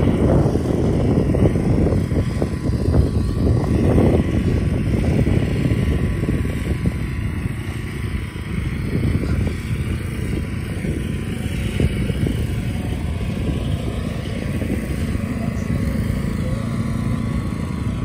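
Gusting wind buffeting the phone's microphone, a loud uneven low rumble that is strongest in the first few seconds, over steady road traffic.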